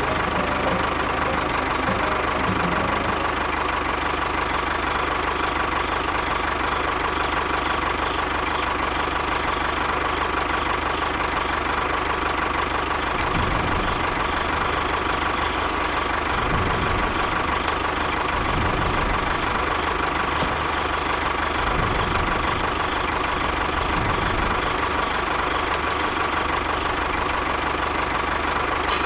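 An engine running steadily, as at idle, with a steady high whine on top.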